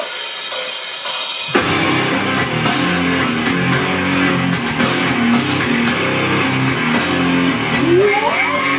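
A loud rock song with distorted electric guitar and drum kit kicks in about a second and a half in, after a short burst of high hiss. Near the end a voice slides up in pitch over the music.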